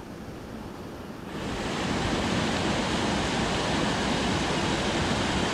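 Rushing mountain creek water, a steady hiss that suddenly grows louder and fuller about a second in.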